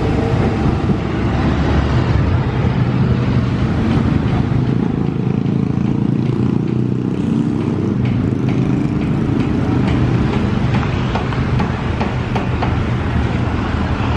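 KAI CC206 diesel locomotive's engine running with a steady low drone, close by as it passes the tracks.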